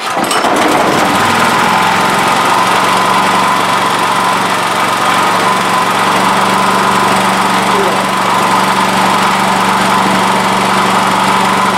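Honda EB5000 generator's engine starting suddenly and then running loud and steady.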